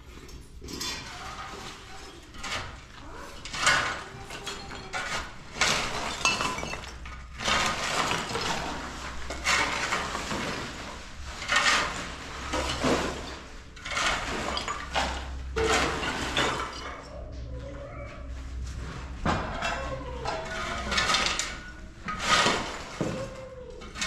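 Irregular clattering and knocking of hard objects, a louder knock every second or two.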